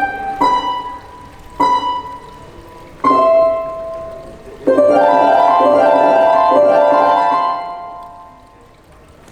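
Harp-like plucked notes: three single notes about a second and a half apart, then a quick run of overlapping notes that rings on and fades out toward the end.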